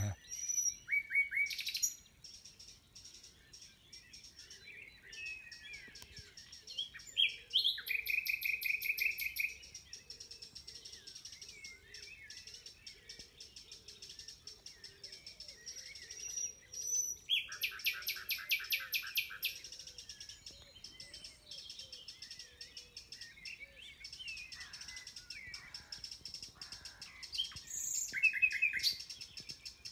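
Common nightingale singing close overhead: about four loud phrases of fast, evenly repeated notes, with quieter, varied warbling between them and other birds calling in the background.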